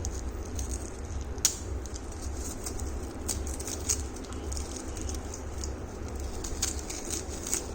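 Packets and packaging being handled: scattered crinkles and light clicks, with one sharper click about a second and a half in, over a steady low hum.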